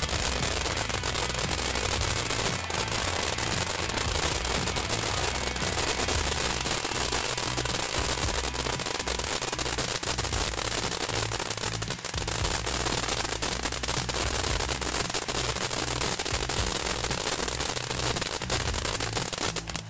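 Great Grizzly 'Snow Cone' fountain firework burning: a steady hissing spray of sparks with dense crackling throughout.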